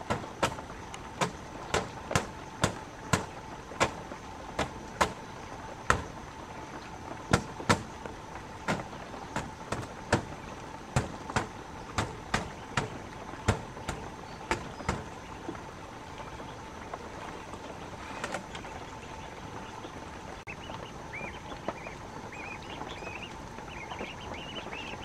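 A run of sharp knocks, about two to three a second, that stops about fifteen seconds in, with a single knock a few seconds later. A steady background hiss lies under it, and short high chirps come in near the end.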